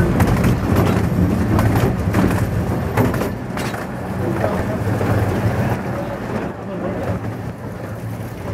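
Steady low rumble of a narrow-gauge park train running along its track, heard from on board, with a few sharp clicks in the first three seconds or so.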